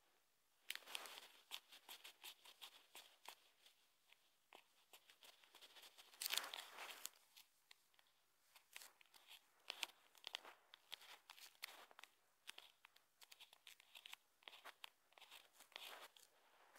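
Faint handling noise on a phone: irregular small clicks and scratchy rustling, with a longer scrape about six seconds in.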